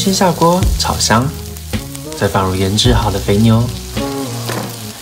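Onions and marinated fatty beef slices sizzling as they fry in a nonstick pan, stirred with a silicone spatula, under a narrating voice.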